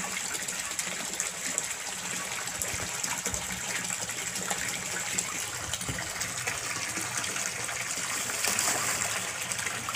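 Steady splashing of a stream of water pouring from a pipe into a koi pond, with a low steady hum underneath.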